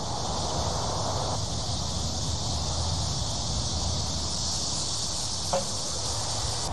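Insects buzzing steadily in a high, even drone, with a low rumble underneath.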